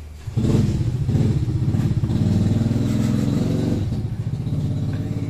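An engine running, like a motorcycle's, starting suddenly about a third of a second in and staying loud, with a pitch that wavers up and down.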